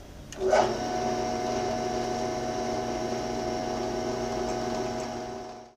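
Drill press starting up about half a second in and running at a steady hum while a small pilot drill bores into a cast iron hand wheel; the sound fades out just before the end.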